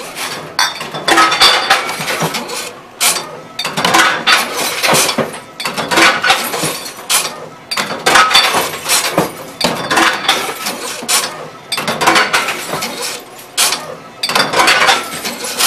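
Glass bottles being smashed one after another inside a Tomra T-63 reverse vending machine: repeated crashes of breaking glass and clinking, about one every second or so.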